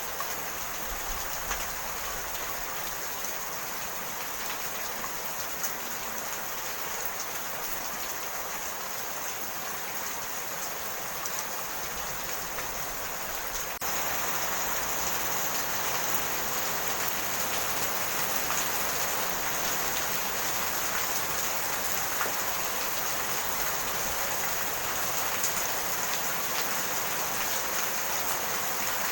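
Steady rain falling, with scattered sharp drop impacts. About halfway through it becomes abruptly louder.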